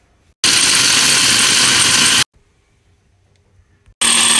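Electric food processor's motor and blade chopping almonds, run in pulses: one burst of about two seconds starting just under half a second in, a pause of near silence, then a short second burst near the end.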